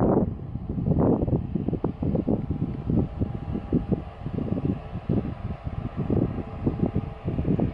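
Wind buffeting the microphone in uneven gusts, over a faint steady hum.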